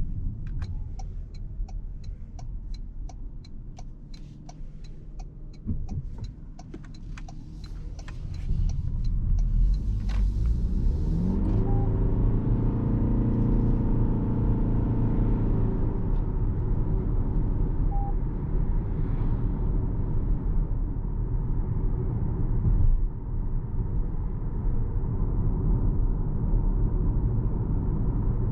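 Inside the cabin of a 2026 Toyota RAV4 hybrid: even clicks about twice a second for the first eight seconds or so, like a turn-signal indicator, over quiet road noise. About ten seconds in the 2.5-litre petrol engine comes in with a rising hum and the car accelerates, after which engine and road noise run steadily and louder.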